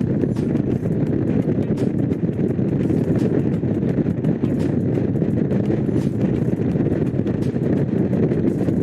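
Honda CX500's V-twin engine running at a steady cruise while riding, with wind buffeting the microphone.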